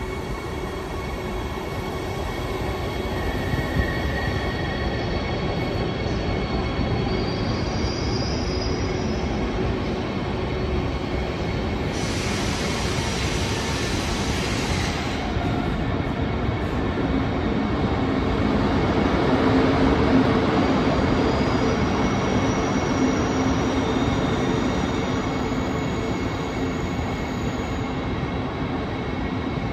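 ICE 2 high-speed trainset pulling in and braking: steady rolling and motor noise that swells to a peak about two-thirds of the way through, with thin high squeals coming and going. About a third of the way in there is a hiss of about three seconds.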